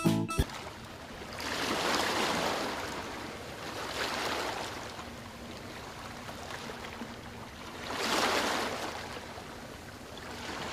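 Rushing water that swells and fades in slow surges like waves washing in, strongest about two seconds and eight seconds in. A last note of children's music cuts off right at the start.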